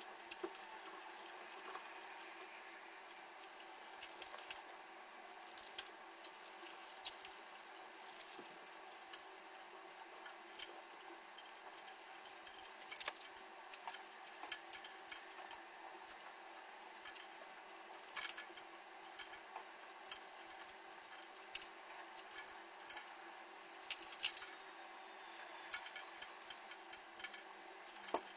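Scattered small clicks and taps of hard parts being handled while a PC is assembled, over a steady faint hum; the taps come more often in the second half, with the sharpest one a little before the end.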